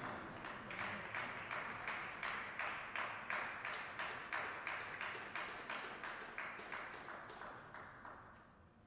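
Small audience clapping after a point, a run of quick, fairly even hand claps that builds and then dies away near the end.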